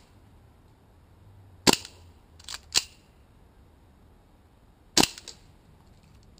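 Gas airsoft race pistol firing: two sharp shots about three seconds apart, the first followed by two lighter pops and the second by faint clicks. The gun is nearly out of gas.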